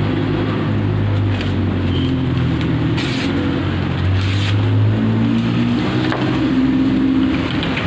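A steady low mechanical drone runs throughout, the loudest sound. About three and four seconds in come two short swishes of a sharp machete blade slicing through paper.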